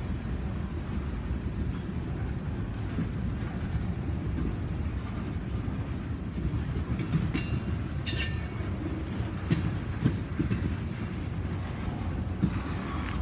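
Railroad cars rolling past with a steady low rumble of wheels on the rails. There are several short, high wheel squeals about seven to eight seconds in, and a few sharp clicks a couple of seconds later.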